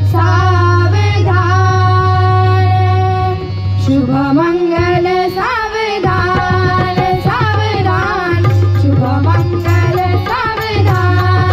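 A boy singing Marathi mangalashtak wedding verses, holding long, ornamented notes over a steady low drone. Tabla strokes join about four seconds in.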